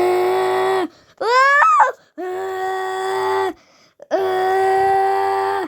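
A child's voice holding three long, steady-pitched notes, with a short rising whoop between the first and second.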